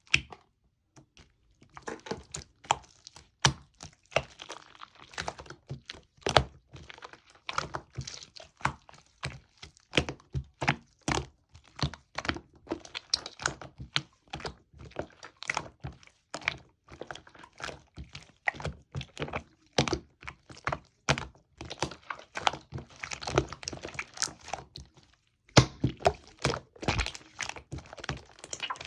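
Hands squishing and poking slime, making rapid, irregular sticky pops and clicks with a couple of short pauses.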